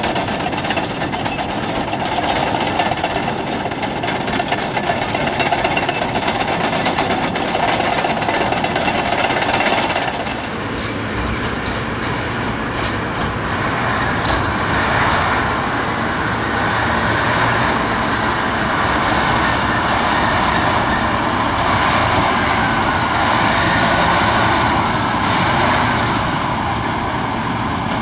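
A Caterpillar crawler dozer's diesel engine running for about the first ten seconds, then a Caterpillar 769D off-highway dump truck's diesel engine driving, its pitch rising and falling as it moves along the haul road.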